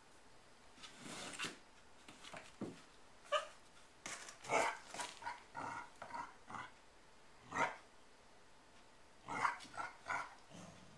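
A Labrador and a beaglier puppy play-fighting: short barks and growls come in scattered bursts, busiest about four to six seconds in and again near the end.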